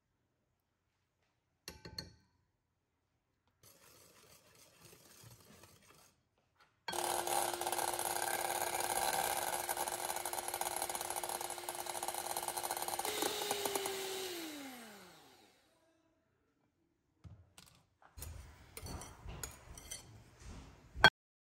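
Electric hand mixer whipping egg whites in a bowl, running steadily for about seven seconds, then switched off, its pitch falling as the motor winds down. Around it come light clicks and scraping against a bowl, and a sharp knock near the end.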